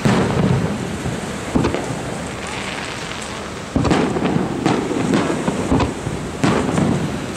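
Aerial firework shells bursting overhead: a run of sharp booms, one right at the start and more about one and a half, four, five and six and a half seconds in, each followed by a low rolling echo.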